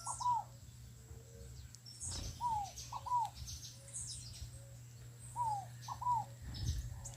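Wild birds calling: one bird repeats a short phrase of three down-slurred whistled notes, a single note then a quick pair, about every three seconds, while other birds add short high chirps.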